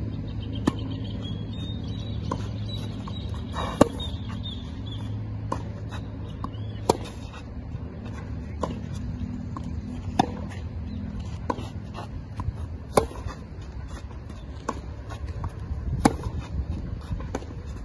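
Tennis racquets striking the ball in a steady baseline rally. Sharp pops come about every one and a half seconds, with the nearer player's shots loudest, about every three seconds, and fainter ticks in between, over a low steady background hum.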